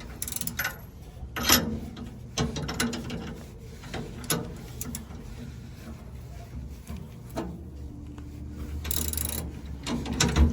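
Hand socket ratchet clicking in short runs while tightening the bolts of a leaf spring clamp, with a few louder metal knocks.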